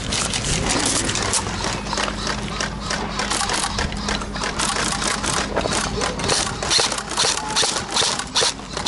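Airsoft electric rifles firing in rapid clicking bursts, mixed with crunching footsteps and gear rustle on gravel; the shots grow denser and sharper in the last few seconds. A steady low hum runs underneath for the first six seconds.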